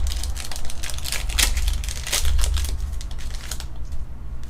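Foil booster pack wrapper crinkling and trading cards clicking as they are handled, a quick run of crackles and clicks that thins out near the end.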